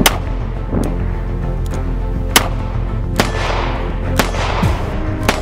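Single shots from a Smith & Wesson Model 351 PD, a lightweight .22 Magnum snub-nosed revolver. There are about five sharp cracks spaced a second or so apart, the first right at the start, some trailing off in a short echo. Background music plays underneath.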